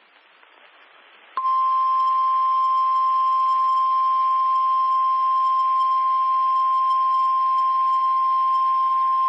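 Weather-radio emergency warning alarm tone: after about a second and a half of faint static hiss, one loud, steady, unbroken beep sounds and holds. It is the attention signal that announces a severe thunderstorm warning.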